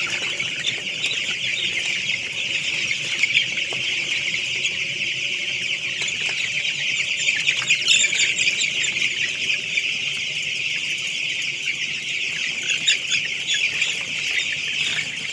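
Dense, unbroken chorus of high peeping from a large flock of 11-day-old broiler chicks crowded on the floor of a poultry house. The chicks are being stirred from the edge of the house so they stop huddling in the cold after rain.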